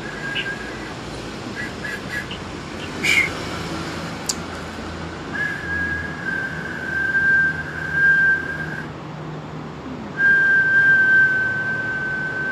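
A high, steady whistling tone used as a healing sound, held for several seconds at a time, breaking off about nine seconds in and starting again a second later, sagging slightly in pitch. Two short clicks come around three and four seconds in.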